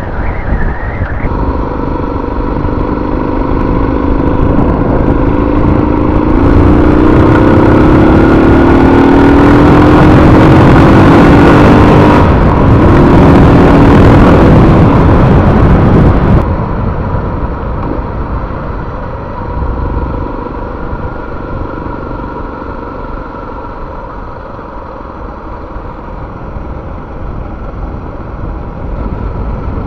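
Suzuki DR650's single-cylinder four-stroke engine pulling hard, its note rising steadily in pitch as the bike accelerates, with loud wind rush over the helmet camera. About sixteen seconds in, the sound drops suddenly as the throttle is rolled off and the bike runs on more quietly.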